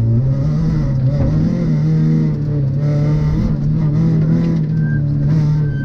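Rally car engine driven hard at high revs, its pitch dipping and climbing again a few times as the throttle and gears change, with a couple of short high chirps near the end.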